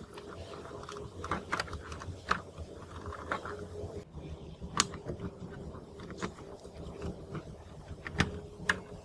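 Scattered light clicks and taps from handling the plastic and metal parts of a cassette recorder and pulling wire connectors off its circuit board, over a steady faint hum.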